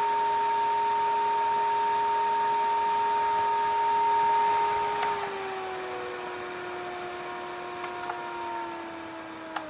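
A small electric motor whines at a steady pitch, drops to a lower pitch about five seconds in, then sags further and starts to wind down at the end.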